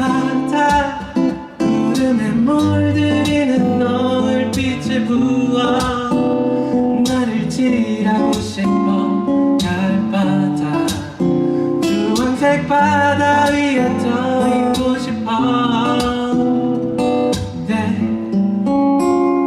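Live music: strummed acoustic guitar playing the song's outro after the last sung line, with some wordless singing over it.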